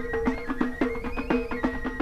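Instrumental background music in a traditional style: a quick run of short, stepping notes over a steady held note.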